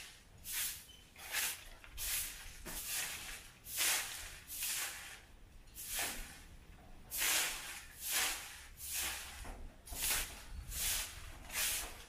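Grass broom sweeping dry leaves and grit across a bare dirt yard: a steady run of brisk swishes, a little more than one a second.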